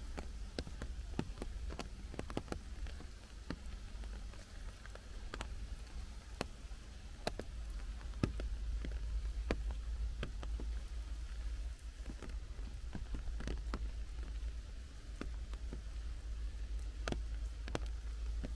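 Rain in a forest: scattered drops falling from the wet canopy and landing as irregular, separate sharp taps, over a steady low rumble.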